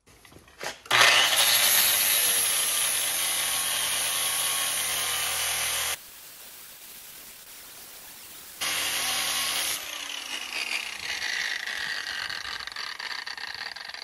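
6-inch angle grinder with a coarse 25-grit flap disc grinding down the heads of rusted steel carriage bolts on a snowplow cutting edge. The grinding starts about a second in and breaks off for a couple of seconds midway. Near the end the trigger is released and the motor winds down with a falling whine.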